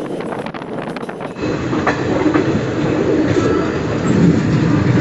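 Passenger train wheels clattering rhythmically over rail joints. About a second and a half in, it changes abruptly to a louder rumble with a few faint squeals from the wheels.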